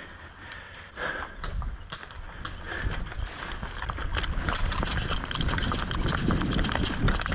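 A person running across grass: quick, irregular footsteps with rattling gear, getting louder as the run goes on.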